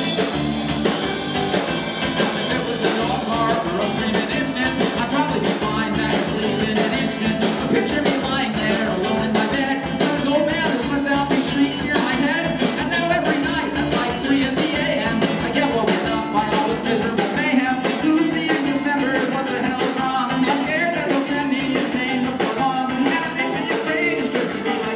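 Live rock band playing, with electric and acoustic guitars, a drum kit and a singing voice, recorded from the audience.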